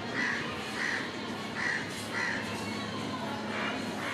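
A crow cawing over and over, short calls about two-thirds of a second apart, with a brief pause before the calls start again near the end.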